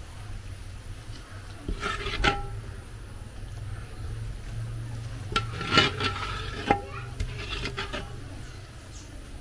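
A ceramic plate scraping and clinking against a large metal cooking pot as thick stew is scooped out and tipped into a ceramic dish. The clinks come in clusters, briefly ringing, loudest about six seconds in.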